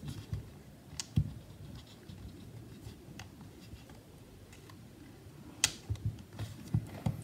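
Fingers handling parts and cables inside an opened MacBook Air: scattered light clicks and taps, with a sharp click about a second in, another past the halfway point, and a few light knocks near the end.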